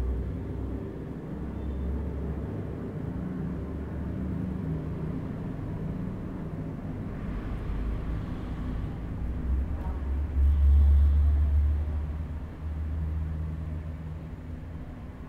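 A low, continuous rumble that swells louder about ten seconds in.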